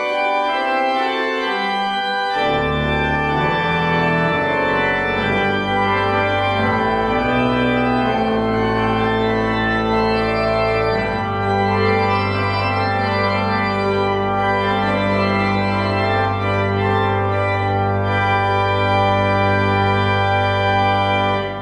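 Organ playing slow, sustained chords, with low bass notes coming in after about two seconds; the sound drops away right at the end.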